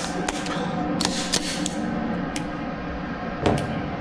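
A handful of sharp clicks and knocks from a 2011-pattern pistol being loaded: magazine seated and slide handled while making ready, over a steady low hum.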